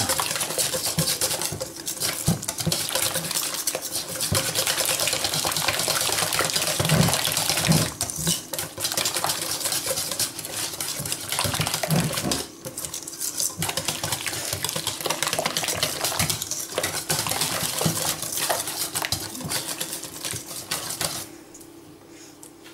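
Wire whisk beating a thin batter in a stainless steel bowl, its wires clattering and scraping rapidly against the metal sides; the whisking stops near the end.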